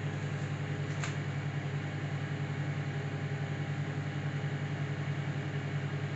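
Whirlpool microwave oven running, a steady hum with a fast, even pulse from its transformer and fan as the turntable turns, with one faint click about a second in.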